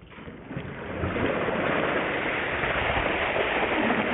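Ice water dumped from buckets over two people, pouring and splashing down onto them and the grass. The rush of water swells about a second in and keeps going.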